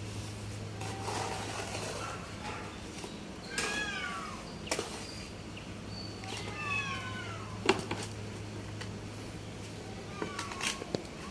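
An animal calling twice, drawn-out cries that fall in pitch, with a few sharp knocks in between, the loudest about two-thirds of the way in, over a steady low hum.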